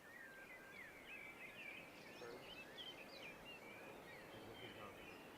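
Faint chorus of small birds chirping, many short overlapping calls, over a soft background hiss.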